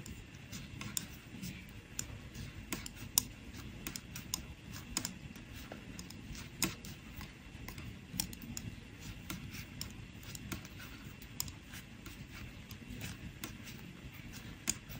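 Double-pointed knitting needles clicking and tapping against each other as stitches are knit in the round: light, irregular clicks, a few each second.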